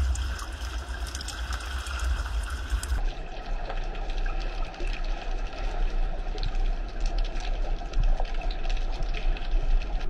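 Underwater ambience picked up by a camera in the sea: a steady low rumble with a constant crackle of small clicks. The sound changes abruptly about three seconds in.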